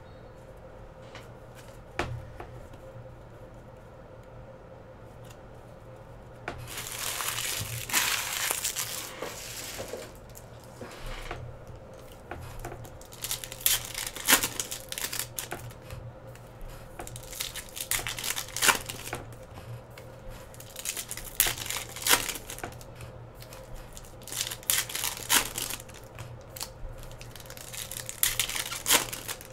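Trading card box packaging and pack wrappers being torn open and crinkled by hand, in irregular bursts of rustling and tearing with short clicks between.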